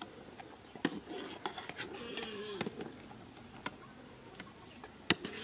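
Metal spoon clinking and knocking against a steaming metal cooking pot and bowl as food is scooped out, a few scattered sharp clicks with the sharpest near the end.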